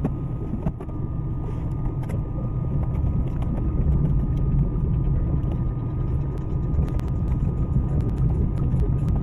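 Front-wheel-drive car running under load as it reverses up a steep dirt track, a steady low engine and tyre rumble heard from inside the cabin, with a few sharp clicks in the second half.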